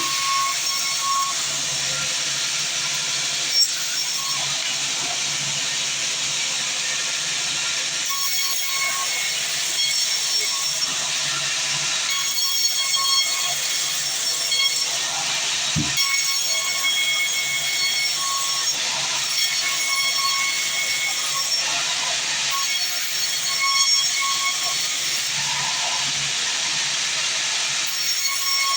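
Band sawmill blade cutting lengthwise through a mahogany log: a steady, hissing cut.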